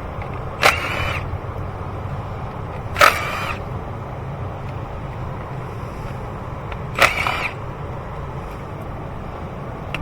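Three short metallic clinks and rattles of hand tools, about a second, three seconds and seven seconds in, each ringing briefly. Under them runs a steady low hum.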